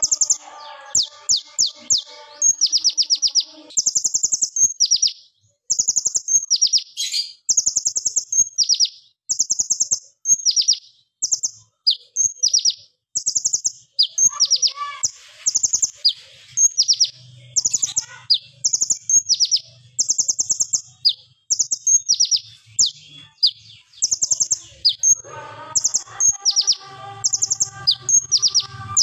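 Male van Hasselt's sunbird (kolibri ninja) singing a rapid-fire song: short, very fast, high-pitched trills, each sliding downward, following one another about once or twice a second with brief gaps.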